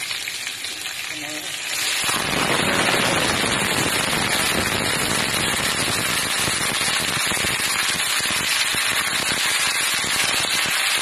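Hot oil sizzling in a wok with onion, garlic and chili. About two seconds in it jumps to a loud, dense crackling sizzle as sliced pork goes into the hot oil, and then keeps frying steadily.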